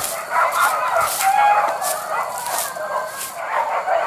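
A pack of hunting dogs baying and yelping in many overlapping calls as they chase a wild boar.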